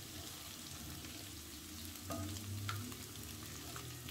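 Small chunks of marinated chicken sizzling in oil in a non-stick pot, stirred with a wooden spoon, with a few faint scrapes and ticks of the spoon about two to three seconds in. The marinade's liquid has cooked off, so the chicken is now frying dry towards golden brown.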